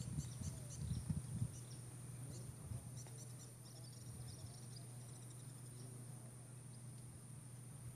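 Night insects chirping in quick clusters over a steady high-pitched drone, with a low steady hum underneath. A few soft knocks come in the first second and a half.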